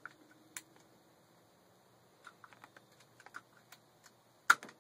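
Scattered light clicks and taps of plastic PEX pipe and brass fittings being handled, coming in a quick run about halfway through, with one much louder sharp snap near the end.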